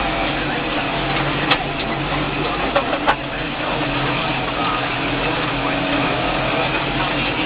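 Tractor diesel engine running steadily under ploughing load, with a few sharp clicks or knocks about a second and a half and three seconds in.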